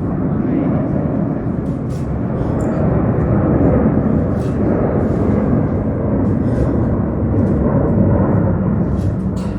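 Heavy road-construction machinery running close by: a loud, steady low rumble with a few faint clicks over it.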